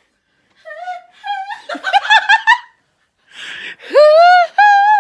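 A woman laughing in quick high-pitched bursts, then letting out two long, high held vocal notes near the end.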